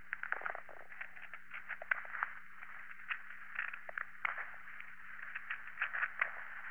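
A small knife shaving and cutting a calligrapher's reed pen (qalam): a quick run of short, irregular scraping and crackling strokes.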